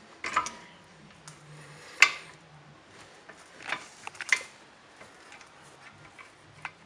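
A handful of sharp metallic clinks and knocks, a second or so apart, from hard metal objects being handled and set down. The loudest comes about two seconds in.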